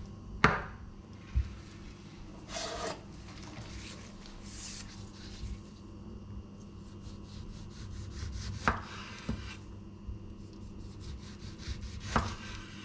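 Chef's knife sawing through a tomato on a bamboo cutting board, with short scraping strokes and a few sharp knocks of the knife and items against the wooden board.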